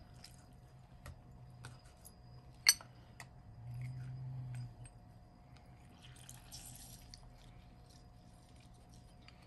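Hand-held metal citrus press squeezing lime juice over raw chicken: faint dripping and small clicks, with one sharp click about a third of the way in and a soft hiss a little past the middle.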